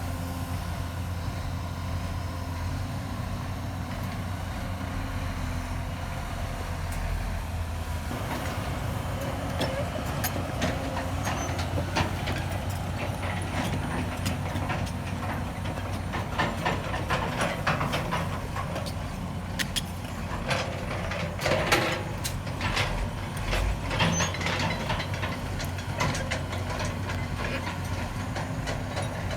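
Heavy diesel construction machinery running steadily. From about eight seconds in there are irregular metallic clanks and knocks, busiest in the second half.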